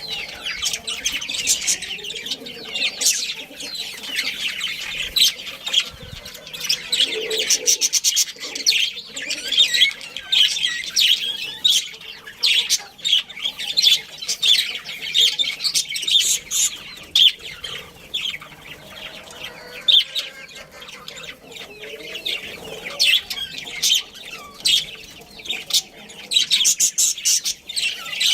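A colony of budgerigars chirping and chattering, many short high calls overlapping without a break.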